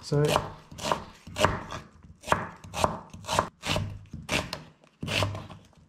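Chef's knife slicing an onion into long strands on a wooden chopping board: a steady run of knocks as the blade hits the board, about two a second.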